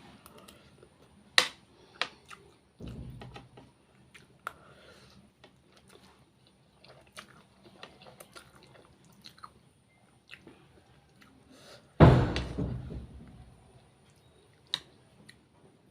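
A person chewing and eating food close to the microphone, with small wet clicks and mouth smacks throughout. A dull thump comes about three seconds in, and a much louder knock about twelve seconds in.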